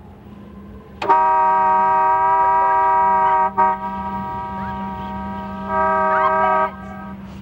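Car horn held in a long, loud, steady honk that starts abruptly about a second in. It drops to a fainter level for about two seconds, comes back loud, then cuts off sharply near the end.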